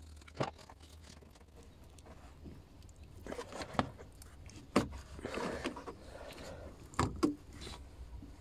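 Scattered clicks and knocks, with a short rustle about five seconds in, from hands and tools working a hose off the EGR valve.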